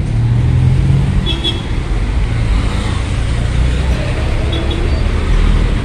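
Street traffic: motor vehicles running close by, making a steady low engine rumble.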